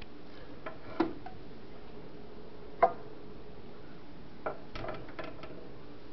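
A few sharp clicks and light knocks: one about a second in, a louder one near three seconds, and a quick cluster near the end, over a faint steady hum.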